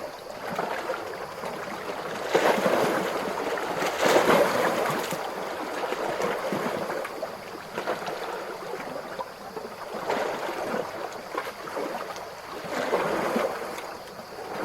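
Calm ocean waves washing and lapping, each small wave swelling and falling away every two to three seconds.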